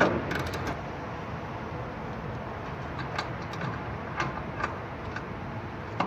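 A few metallic clicks and taps from a socket and extension being worked onto the washing machine's pulley bolt: a quick cluster in the first second, then single clicks every half second or so. A steady background rumble runs underneath.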